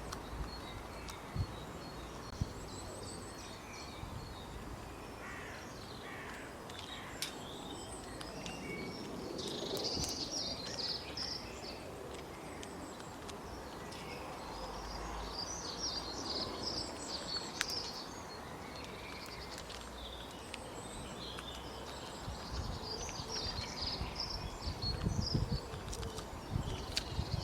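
Steady outdoor background with scattered runs of short, high chirping calls from a small animal or bird, coming in three spells: about 9 seconds in, around the middle, and near the end.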